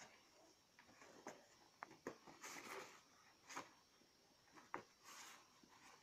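Faint scattered rustles and sharp clicks of an Alaskan Malamute worrying at a cardboard box of dog food, pawing and tearing at the cardboard, with two brief tearing rustles.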